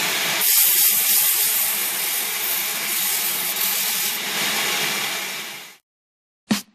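Shop vacuum running through a dust-collection hood beside a wood lathe, with a sanding pad rubbing on the spinning wooden bottle stopper. The sound cuts off abruptly about six seconds in.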